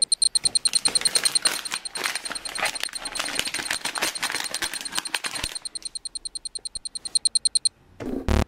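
Foil blind-bag wrapper crinkling and tearing as it is opened by hand, over a fast, steady train of high electronic beeps, about eight a second, that stops shortly before the end; music starts right at the end.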